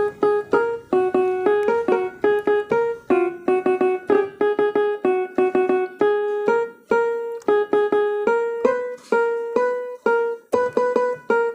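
Casio SA-47 mini keyboard playing a simple single-note melody on its guitar tone: short plucked notes, about three a second, moving within a narrow range.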